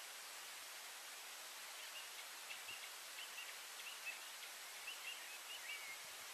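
Faint birdsong: a string of short, high chirps and warbled notes from about two seconds in until near the end, over a steady hiss of outdoor background noise.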